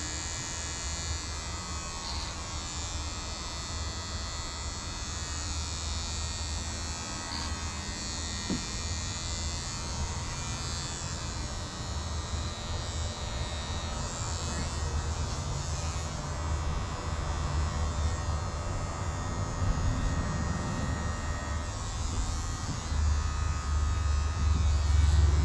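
Electric hair clippers buzzing steadily as they cut a man's hair, the buzz getting louder near the end.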